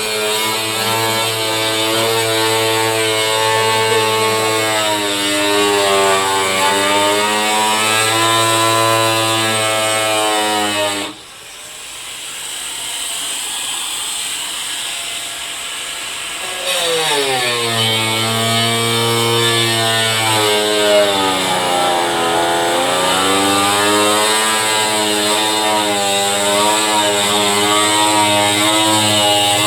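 A motor running with a steady pitched hum whose pitch slowly rises and falls. It cuts off sharply about eleven seconds in and starts up again some six seconds later, winding up in pitch.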